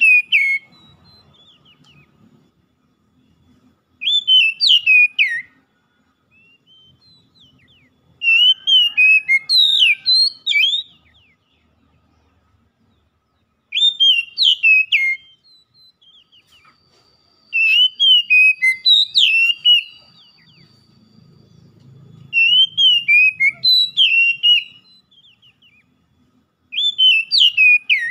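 Oriental magpie-robin singing: loud, clear whistled phrases of rising and falling notes, each a second or two long, repeated every four seconds or so with short pauses between.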